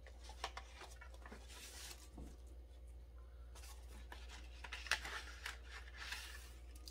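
Faint rustling and light taps of cardstock pieces being slid out of an envelope and handled, with a sharper tap about five seconds in.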